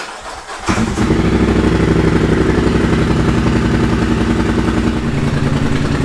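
Polaris Sportsman 1000 XP ATV's parallel-twin engine cranking on the starter and catching within about a second, then running at a fast idle that drops slightly about five seconds in.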